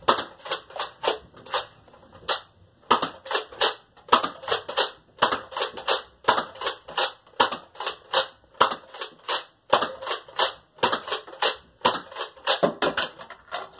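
Nerf Battle Scout dart blaster fired over and over, a long run of sharp plastic clacks a few a second with a couple of short pauses, emptying its clip.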